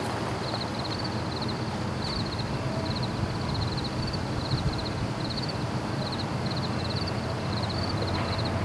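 Insects chirping in an even rhythm, about two chirps a second, each a quick run of high pulses. Under them runs a steady low rumble that grows slightly louder near the end.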